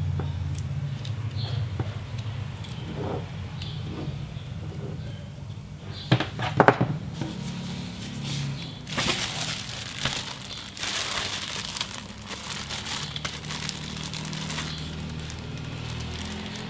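Plastic packaging crinkling and rustling as it is handled, with a few sharp clicks about six seconds in.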